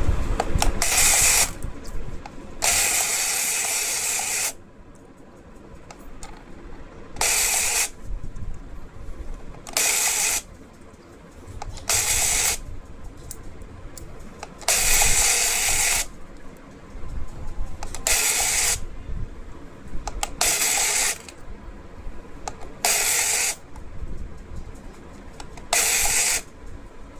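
A dog-house toy coin bank's small geared mechanism running in about ten short bursts of half a second to two seconds, with quieter pauses between them.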